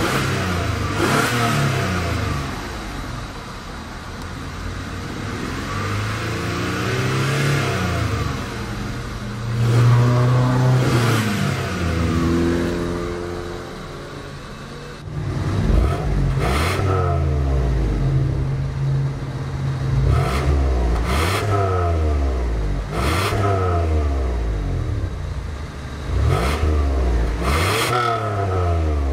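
1990 Toyota Camry LE's 2.5-litre V6 engine being revved in neutral, first heard from inside the cabin with slower rises and falls in engine speed. About halfway through, it is heard at the dual exhaust tips, blipped in several short revs about one every second or two, each rising sharply and dropping back to idle.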